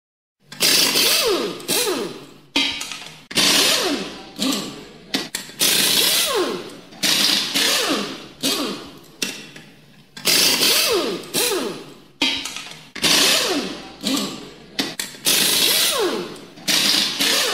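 Background music with loud, noisy hits that die away, some carrying falling tones, repeating in a steady rhythm; it starts about half a second in.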